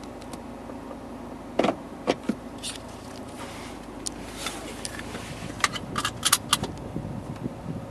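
Steady engine and cabin hum inside a 2012 MINI Cooper Countryman S, with a scattered run of sharp clicks and taps between about a second and a half and six and a half seconds in.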